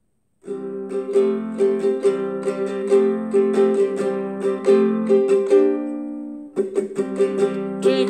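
Guitalele strumming the instrumental intro of a children's song, starting about half a second in in an even rhythm, with a brief break a little before the end before the strumming picks up again.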